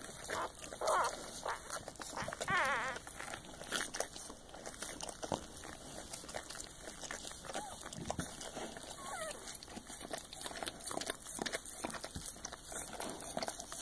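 A newborn Soft Coated Wheaten Terrier–Shiba Inu puppy gives a short, high, wavering cry a couple of seconds in, with fainter squeaks later. Throughout, the mother dog licks it clean, with wet licking clicks and the rustle of the bedding.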